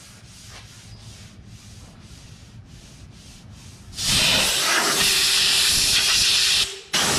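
Sandpaper on a hand sanding block rubbing back and forth over glazing putty on a car body panel, in quiet repeated strokes. About four seconds in, a compressed-air blow gun hisses loudly with a faint steady whistle, blowing the sanding dust off the panel; it cuts out briefly near the end and starts again.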